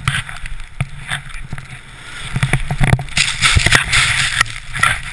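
Wind rushing over a helmet camera's microphone and skis hissing through deep powder on a fast descent, with irregular low knocks and thumps. The rush swells loudest from about three seconds in to near the end.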